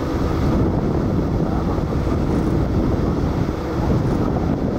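Airbus A400M Atlas in flight, its four TP400 turboprop engines and eight-bladed propellers making a steady, low noise as it passes banking.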